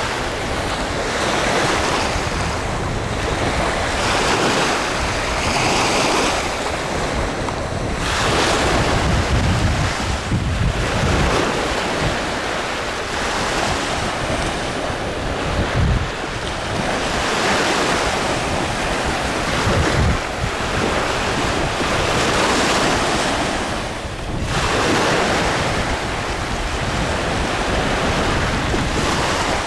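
Wind buffeting the microphone over small waves washing on the shore. The noise swells and eases every few seconds, with occasional low rumbles from gusts hitting the microphone.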